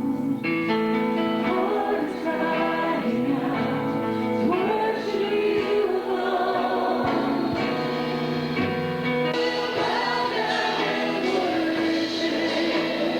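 Gospel-style worship music: several voices singing together over instrumental accompaniment, steady and unbroken.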